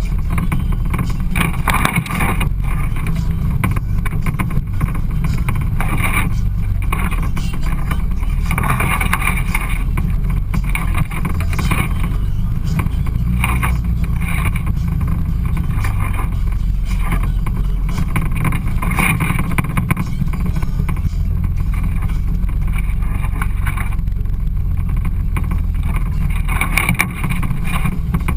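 Side-by-side off-road UTV driving along a trail: a steady low engine drone that carries on without a break, with mid-range noise that swells and fades every few seconds.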